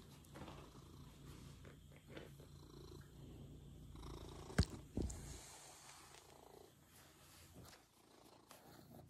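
Domestic cat purring steadily, close up. A sharp click about halfway through and a thump just after are the loudest sounds, and the purring fades in the last couple of seconds.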